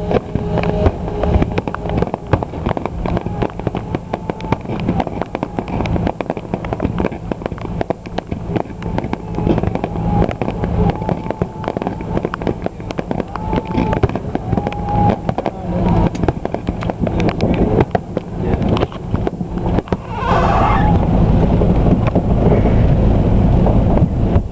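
Fireworks display: rapid, continuous crackling and popping, many small bangs in quick succession. About 20 seconds in a short hissing streak comes through, and after it a louder, steady low rumble sets in under the crackle.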